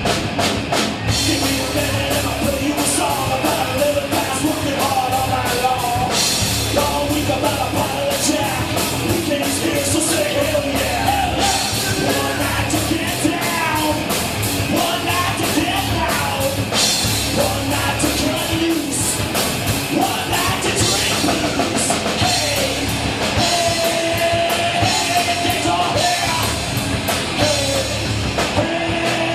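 Rock music with a drum kit and singing, playing steadily.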